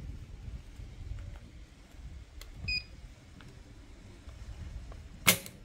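A short electronic beep from a Lyman digital trigger pull gauge a bit before halfway through. Near the end comes a single sharp click as the Glock G17 Gen 3's trigger breaks under the gauge's steady pull, with the gauge reading about 0.85 kg.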